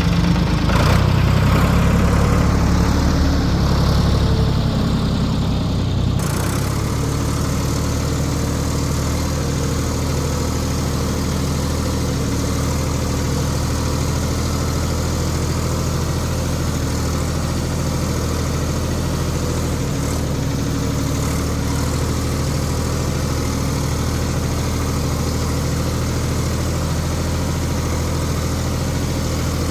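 Diesel engine of a 1973 Ford 4500 industrial backhoe, a three-cylinder, running steadily; it is a little louder for the first six seconds, then settles to an even idle.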